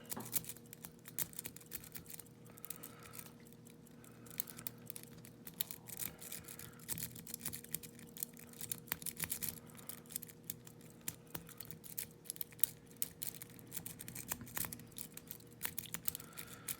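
Lock-pick rake working in and out of the keyway of a Yale railroad switch padlock, raking over the pin tumblers. It makes a steady stream of small, irregular metallic clicks and scrapes under a low tension wrench, with a faint steady hum beneath.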